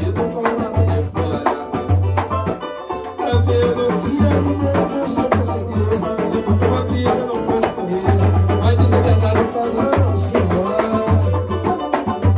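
A samba group playing live on acoustic guitar, samba banjo, cavaquinho, pandeiro and a hand drum, with the pandeiro's jingles rattling over a steady low beat.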